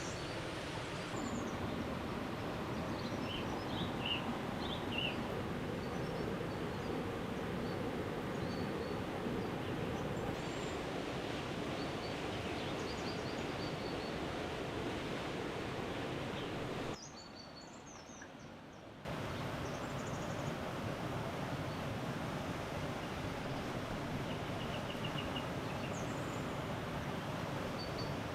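Steady outdoor forest background noise with a few faint, high bird chirps scattered through it; the noise drops away abruptly for about two seconds a little past the middle.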